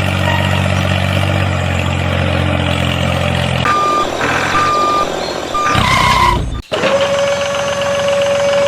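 Truck engine idling, then a truck's reversing alarm beeping three times at one pitch. After an abrupt cut, a single steady tone holds.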